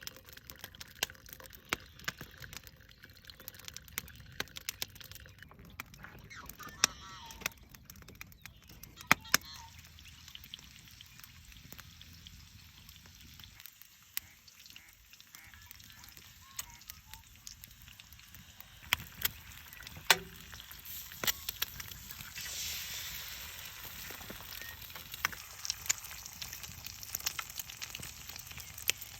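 Campfire crackling with frequent sharp pops, with blackbirds calling now and then in the background. About two-thirds of the way through a steady hiss joins in, the sound of coffee brewing over the fire.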